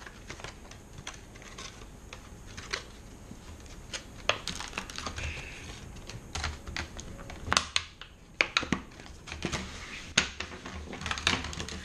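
Plastic bait packaging and a scent bottle being handled and opened: irregular sharp clicks and taps of hard plastic, denser toward the end.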